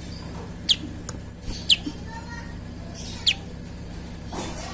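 Prinia (prenjak) calling: three sharp, high chirps, each falling quickly in pitch, spaced about a second or more apart, over a steady low hum.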